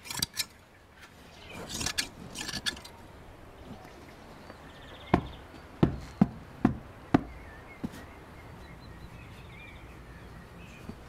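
Scissors snipping through thick sheep's wool in the first few seconds, then about five sharp hand slaps on the hanging woolly sheepskin in quick succession, a little after halfway. Faint bird chirps follow.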